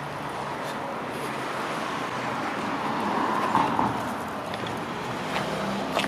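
A road vehicle passing by, its tyre and engine noise swelling to its loudest about three and a half seconds in and then fading.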